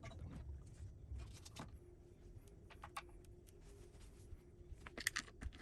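Faint scattered metallic clicks and clinks of hand tools and bolts being handled while working on an electric skateboard's truck mounting, with a short run of louder clicks about five seconds in.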